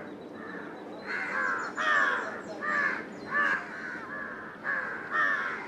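Crows cawing again and again: short, harsh calls, about one or two a second.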